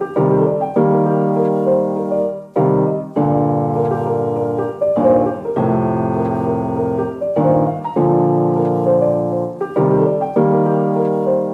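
Intro music: a piano playing held chords, a new chord struck every one to two seconds.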